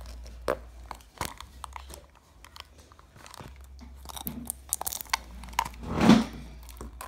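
Plastic wrapper crinkling and crackling as it is peeled off a Zuru Disney Princess surprise capsule, with scattered clicks from the plastic shell being handled. About six seconds in there is a louder, longer crackle.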